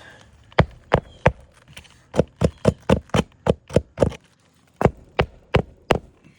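Hammer driving a roofing nail through a lifted asphalt shingle: three separate blows, then a quick run of about nine at roughly five a second, then four more spaced blows.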